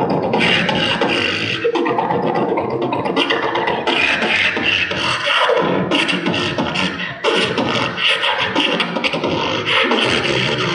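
Solo beatboxing into a handheld microphone through a PA: a continuous, rhythmic beat of vocal percussion strokes layered with low vocal bass sounds.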